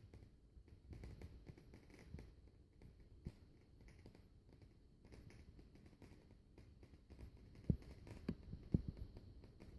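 Shigaclone CD player making faint, irregular ticking and clicking over a low hum, with a few sharper, louder clicks near the end: the strange noise that the owner is recording.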